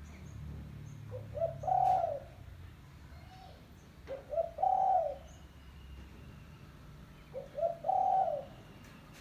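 Spotted dove (tekukur) cooing: three calls about three seconds apart, each a few short notes leading into one longer coo.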